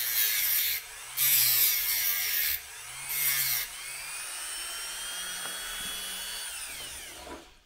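Rotary motor tool grinding grooves into steel office staples in three short bursts of contact, then running free with a steady whine that falls in pitch as the motor winds down near the end.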